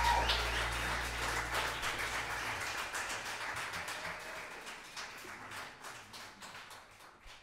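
Audience applauding as the band's last low note dies away in the first two seconds; the applause fades out steadily.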